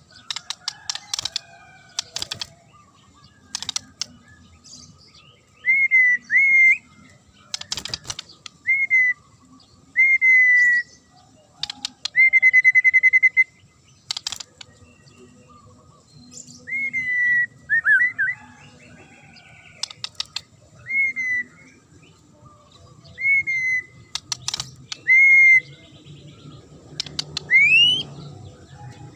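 White-rumped shama (murai batu) singing: short clear whistled notes, some slurring up or down, broken up by sharp dry clicking rattles. One longer trilled whistle comes about halfway, and two rising whistles come near the end.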